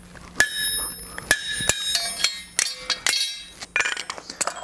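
Hammer blows on a punch driving a hole through the hot, forged disc of flat bar stock on the anvil. A series of sharp metallic strikes with ringing between them, spaced out at first and coming in quicker clusters near the end.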